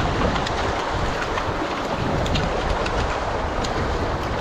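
Steady rush of a shallow river running over rocks, with a hooked brown trout splashing at the surface and short sharp ticks scattered through it.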